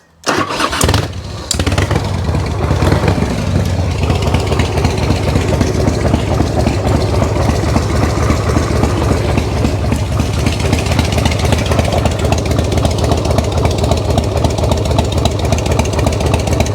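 Harley-Davidson motorcycle's V-twin engine cranked on the electric starter, catching within about a second, then settling into a steady idle.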